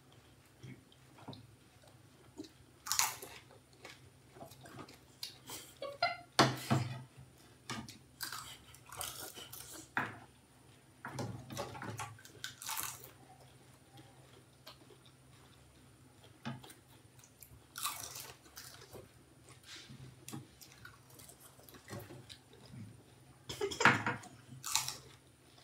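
People crunching and chewing pani puri (golgappa), the hollow fried puris bitten in quick, irregular mouthfuls.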